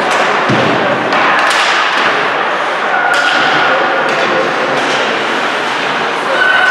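Ice hockey in play: a string of sharp knocks and clacks of sticks and puck on the ice and boards, over steady rink noise of skates and spectators.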